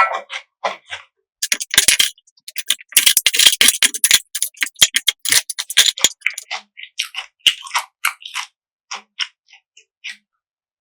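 Close-miked crunchy chewing of food: a dense run of crisp crunches and mouth clicks for a few seconds, then slower, separate bites and crackles.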